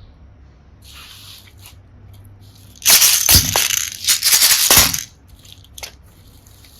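Hands digging through a heap of tiny plastic hearts and seashells, making a loud crunchy crackle of many small pieces rubbing and clicking for about two seconds in the middle, with a brief dip halfway through. A faint rustle comes before it and a single click follows.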